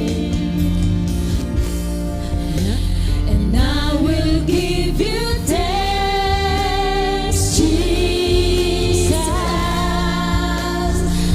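Worship song being sung, with long held and sliding vocal notes over a steady accompaniment with a strong bass.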